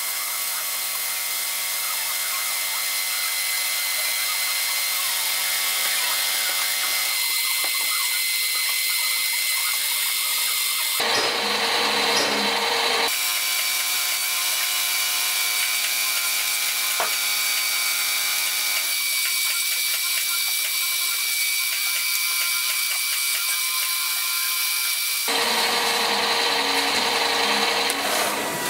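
Warco Super Mini Lathe running steadily, its brushless motor and drive whining, as the tool turns down a metal piston blank. The pitch and mix of tones shift suddenly a few times.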